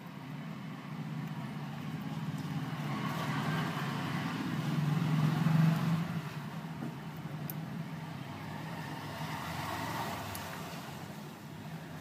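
Passing road traffic: a low vehicle rumble swells to a peak about halfway through and fades away, followed by a fainter second swell near the end.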